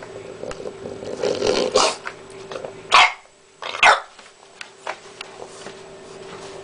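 Bulldog puppy making rough, congested sounds: a harsh, grating stretch, then two sharp outbursts about a second apart.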